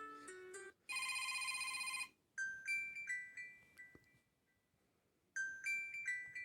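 Stock ringtones previewed one after another through a Huawei P8 phone's loudspeaker. The tail of one tune gives way to about a second of steady buzzing trill. Then a short chiming melody of a few notes plays, stops, and starts over after a pause.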